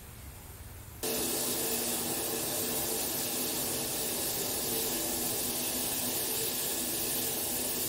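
A pot of water with lemongrass and ginger heating on a gas stove and starting to boil: a steady hiss of the flame and the water that cuts in sharply about a second in.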